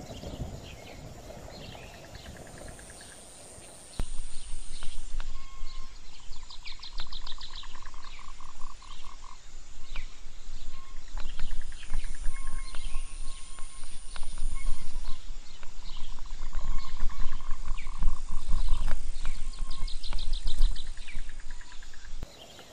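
Mountain bike descending rough dirt singletrack, heard as loud, uneven rumbling and rattling on the bike-mounted camera, starting about four seconds in and cutting off near the end. Forest animals call throughout, with repeated chirps and trills and a high steady buzz.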